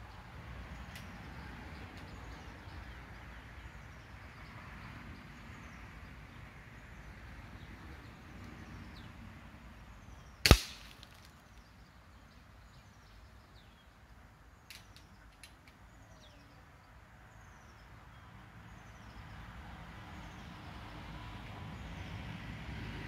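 One sharp crack about ten seconds in, much the loudest thing here: a shot from an NX100 air rifle converted to .22, with the pellet striking the wooden board target. Faint bird chirps sound before and after it.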